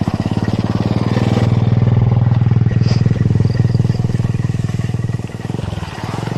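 A small engine running close by, a rapid, even putter that eases off briefly about five seconds in.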